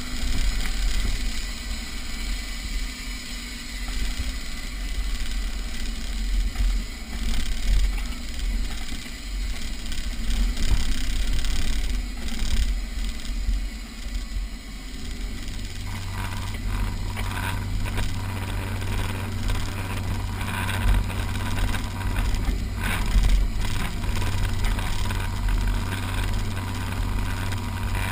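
Off-road 4x4's engine running as it drives over a rough dirt track, with a constant low rumble and short knocks and rattles from the bumps. About halfway through, a steady, stronger engine hum comes in and holds.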